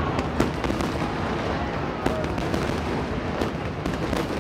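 Aerial fireworks bursting: several sharp bangs, about a second apart, over a continuous rumble and crackle of shells.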